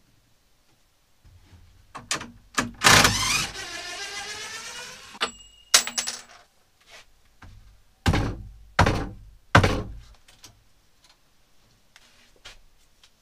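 A steel tape measure's blade retracting with a rattling whir for about two seconds, ending in a sharp snap. A few seconds later come three loud knocks about two-thirds of a second apart.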